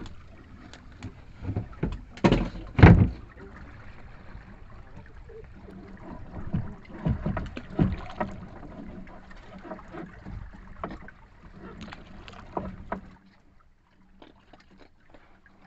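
Water and handling noise on a small fishing boat as a lobster net is hauled in over the bow and the catch picked out by hand: irregular knocks and rustles, the loudest two knocks about two to three seconds in. The sound drops away abruptly about two seconds before the end.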